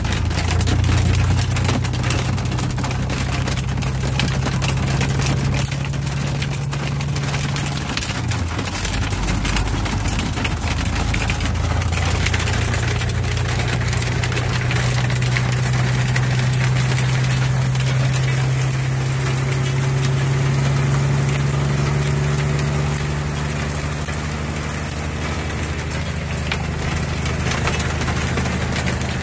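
Heavy hail and rain pelting a semi-truck's cab and windshield, heard from inside the cab, over the steady hum of the truck's engine. The engine note drops about eight seconds in and climbs back a few seconds later.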